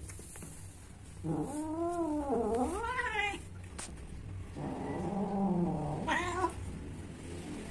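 A cat caterwauling in two long, wavering yowls, each climbing in pitch at its end: the drawn-out calling of cats at mating time.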